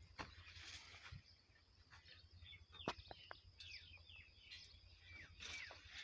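Faint outdoor ambience with short, downward-gliding bird chirps scattered through it, and a few light clicks about three seconds in.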